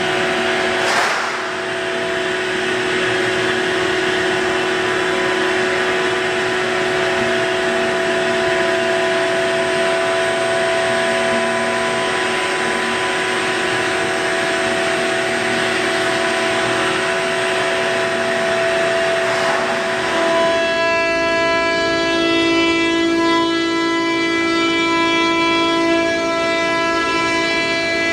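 Shop vacuum running steadily, a loud whining drone with several held tones, used to suck rust sludge out of an old air compressor tank. A brief knock comes about a second in, and about twenty seconds in the tones turn sharper and clearer.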